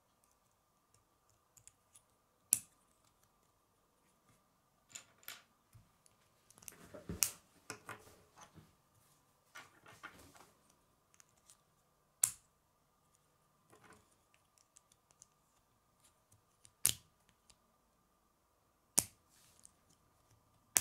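K'nex plastic rods and connectors snapping together: sharp separate clicks as pieces are pressed into place, about six of them spread out, with rattling and handling of loose plastic parts in the middle stretch.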